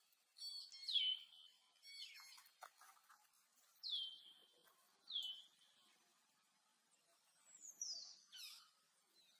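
Baby monkey's high-pitched squeaking calls: a string of short calls, each dropping in pitch, and a longer falling call near the end. These are the calls of a baby left alone without its mother.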